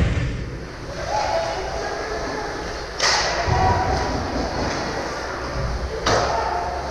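Two sharp knocks about three seconds apart, a hockey puck being shot or striking the boards, each ringing briefly in the arena, over faint voices.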